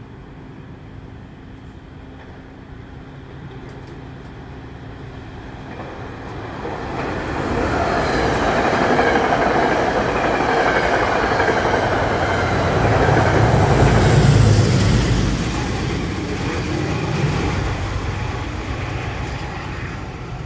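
A Metro-North train of Shoreliner III coaches with a P32AC-DM Genesis locomotive approaches the station. Its rumble grows from about six seconds in and is loudest a little past the middle, then it dies away gradually.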